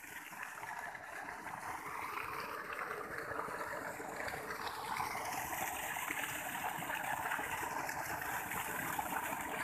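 Water gushing from an irrigation pipe outlet and splashing into an earthen channel: a steady rushing that grows louder.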